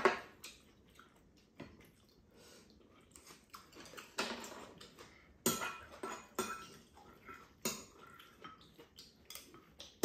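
Spoons and chopsticks clinking and scraping against ceramic bowls at irregular intervals as rice is scooped and eaten, with some chewing.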